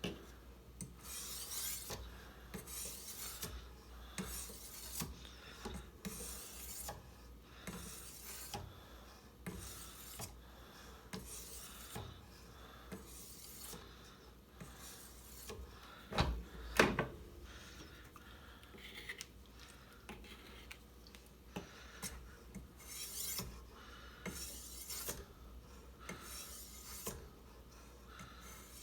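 Sharpening stone on a Ruixin Pro guided sharpening system stroked along a kitchen knife's edge, a rasping stroke about every second. Two loud knocks come about halfway through.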